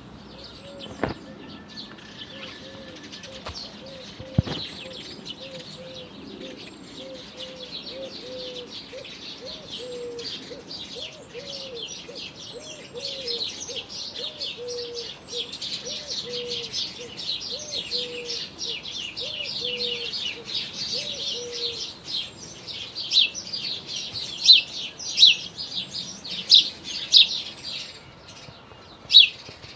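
Birdsong: several small birds chirping and twittering, busier and louder toward the end with a run of sharp, loud chirps. Under it a low call repeats steadily, about two short notes a second, for most of the first two-thirds. Two brief knocks sound in the first few seconds.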